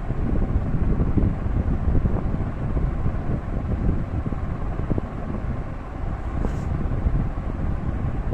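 Steady low rumble of wind noise on the microphone, with a faint short hiss about six and a half seconds in.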